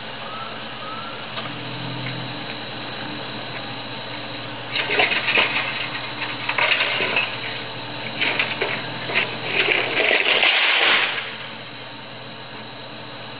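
Wooden boards and signs being knocked over and dragged on pavement: a run of irregular clattering crashes and scrapes, starting about five seconds in and dying away about eleven seconds in.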